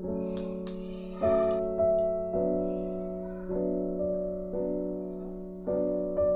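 Background piano music: slow, held notes that fade gently, with a new note or chord about once a second. A few light clicks sound in the first second and a half.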